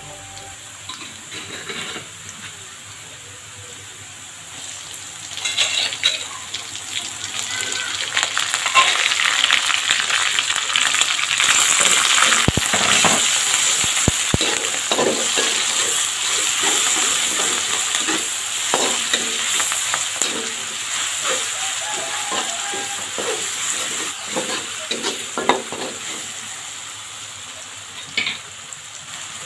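Spice paste sizzling in hot oil in a steel wok, stirred with a metal spatula that scrapes and knocks against the pan. The sizzle grows louder about five seconds in and eases off near the end.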